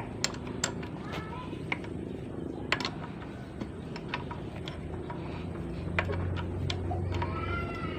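Scattered light clicks and taps from handling tools and parts during manual gearbox disassembly, over a steady low hum. Faint chirps sound about a second in and again near the end.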